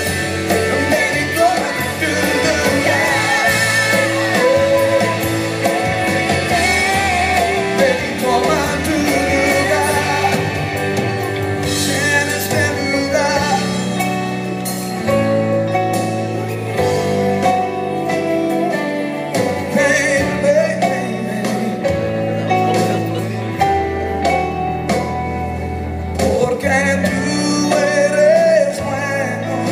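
Worship music with singing: a voice over sustained held chords, carrying on without a break.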